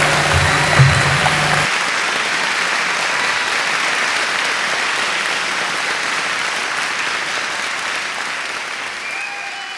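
Audience applauding as the dance music ends: the music with its bass cuts off about two seconds in, leaving steady applause that slowly fades near the end.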